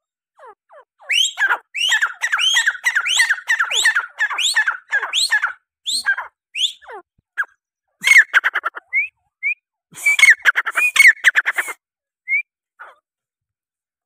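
Grey francolin calling: a rapid, loud string of harsh repeated notes, each sweeping down and back up in pitch, about two or three a second. It runs for several seconds from about a second in, breaks into scattered single notes, then returns in a second bout near the ten-second mark.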